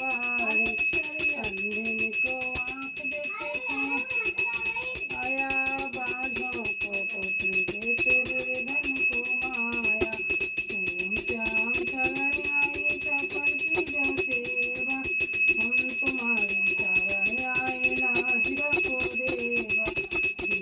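Hindu aarti being sung as a melodic devotional song, with a hand bell rung rapidly and continuously so that its steady high ringing runs underneath throughout.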